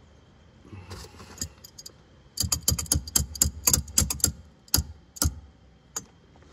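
Sharp metal clicks as a cotter pin is worked into the castle nut and axle hole of a golf cart hub: a quick, uneven run of about a dozen clicks starting a little over two seconds in, then a few single clicks.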